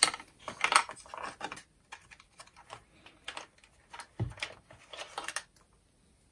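Plastic clicks and rattles from a Makita DCF203 cordless fan's housing and power-connector lead as the lead is worked out of its plastic clips and lifted away. A quick run of clicks at the start, then scattered light clicks, a dull knock about four seconds in and a few more clicks about a second later.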